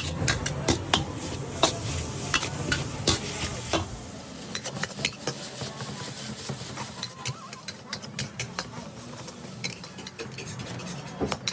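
Noodles being stir-fried in a hot pan: metal utensils clank and scrape against the pan many times over a steady sizzle.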